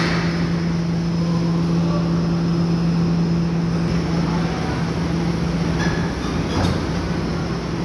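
Heavy diesel machinery running with a steady low hum, and a single knock near the end.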